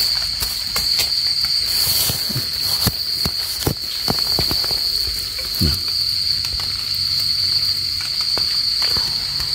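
A continuous high-pitched insect call, steady and unbroken, with scattered short taps and scrapes from a metal rod and hands digging in the soil.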